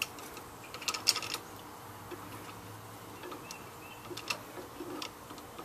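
Light metallic clicks of pliers turning a brake bolt as it is threaded in by hand: a quick cluster of clicks about a second in, then a few scattered single ticks.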